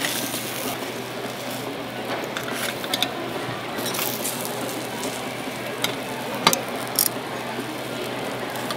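Egg-and-cabbage omiyaki cakes sizzling in a hot griddle pan with round wells, with a few sharp clicks of metal tongs and a skewer against the pan, once about three seconds in and several times near the end.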